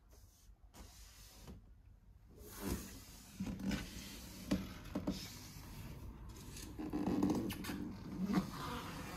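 Quiet room tone, then soft rustling with a few light clicks and knocks from about two and a half seconds in: handling noise from a handheld camera.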